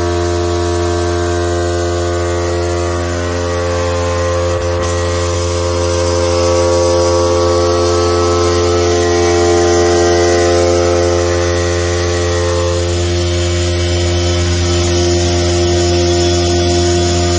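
Vibration stress-relief exciter, an eccentric-weight motor clamped to a welded steel plate, running at about 5,230 rpm and shaking the plate with a loud, steady hum and many overtones. Some of the higher overtones fade out about 13 seconds in.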